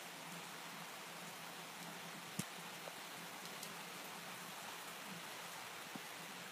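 Steady rain falling, an even hiss, with one sharp tap about two and a half seconds in and a couple of fainter taps later.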